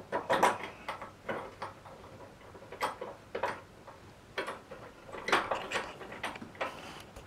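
Irregular light metal clicks and taps as an adjustable spanner is adjusted and fitted onto a crosshead basin tap's brass headgear, with pump pliers gripping the tap body.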